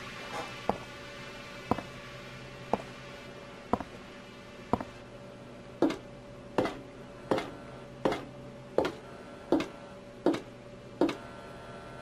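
Horror game audio: a low steady drone with sharp ticks or knocks about once a second, which turn louder and quicker, about every three-quarters of a second, from halfway through.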